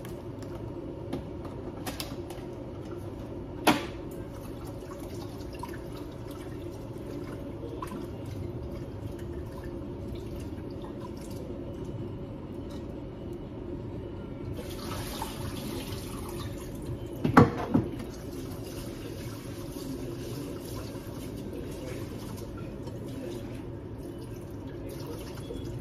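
Kitchen tap running into a sink as a pot is washed, the water starting about halfway through and running nearly to the end. Sharp clanks of cookware, once early and twice in quick succession mid-way, over a steady low hum.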